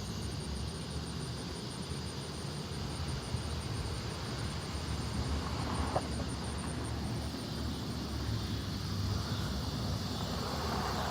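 Evening outdoor ambience: a steady distant low rumble under a high, rapidly pulsing insect trill, with the rumble swelling slightly near the end.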